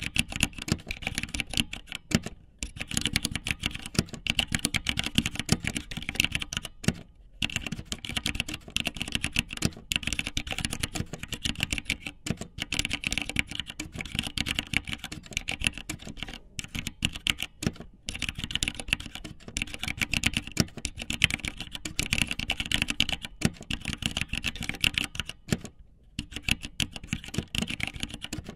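Rapid, irregular clicking in long runs, broken by short pauses every few seconds.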